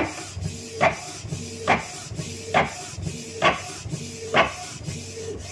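Canon G3060 ink tank printer printing a nozzle check page: a motor whine with a sharp knock about every 0.9 s, six in all, as the print head passes across the sheet. The printer is running normally with its new carriage belt.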